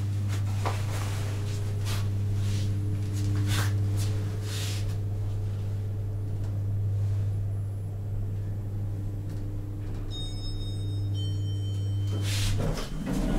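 SMW elevator's drive running with a steady low hum while the car travels down. A few clicks come in the first seconds, and faint high-pitched tones sound shortly before the hum cuts off near the end as the car stops.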